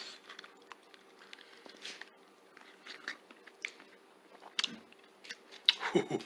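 A person chewing boiled chicken feet, with scattered small crunches and clicks through the chew, over a faint steady hum. The feet are very chewy and tough.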